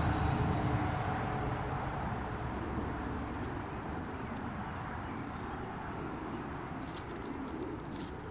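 Low rumble of a distant engine, its faint steady tones fading over the first two seconds into a quieter, even rumble.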